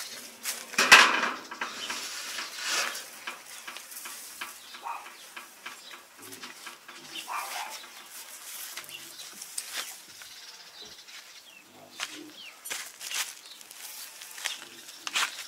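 A large fabric sheet being shaken out and spread on the ground, flapping and rustling in irregular swishes, loudest about a second in.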